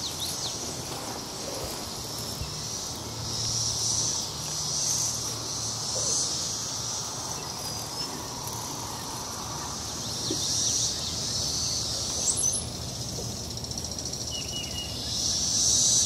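Brood X periodical cicadas buzzing in the trees, a high chorus that swells and fades several times. These are the first songs of newly emerged adults, with only a few of them singing.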